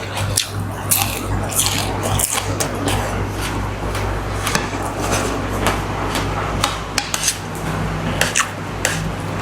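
Spoon and cutlery clinking against plates and bowls while eating: a run of short, sharp, irregular clicks over a steady low hum.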